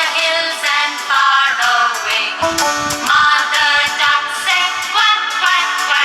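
Nursery-rhyme song: upbeat music with a sung melody.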